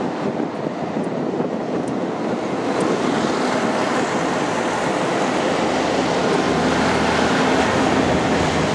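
Diesel railcar passing close below, its engine running and its wheels rolling on the rails, growing louder from about three seconds in as it comes out from underneath.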